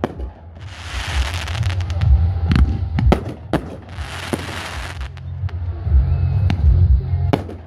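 Aerial fireworks shells bursting: sharp bangs, several in quick succession two and a half to four seconds in and another near the end. Crackling glitter shells fizz for about a second, around one second in and again around four seconds in, over a steady low rumble.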